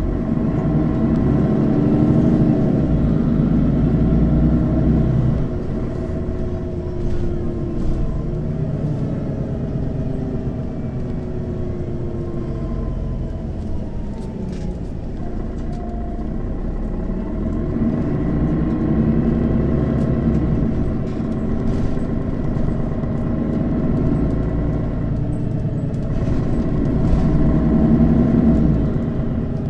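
Diesel engine of a 2003 Mercedes-Benz O 530 Citaro city bus, heard on board while in service, pulling hard under acceleration, easing off with a whine that glides in pitch, then pulling hard again twice.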